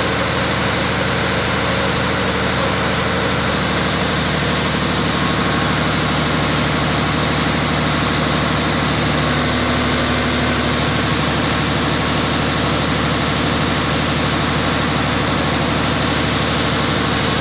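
Diesel engine of a Wirtgen 1000C cold milling machine running steadily at constant speed.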